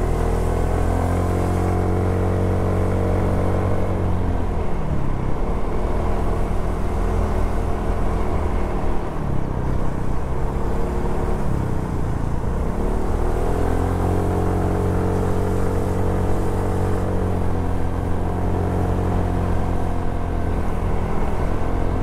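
Suzuki Address 110 scooter's single-cylinder four-stroke engine running under way, heard from on board. The engine note falls away twice as the throttle eases, about four seconds in and again around twelve seconds, then rises and holds steady.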